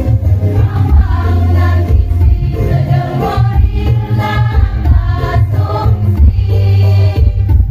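A women's choir singing through stage microphones over an electronic keyboard accompaniment with a strong, steady bass.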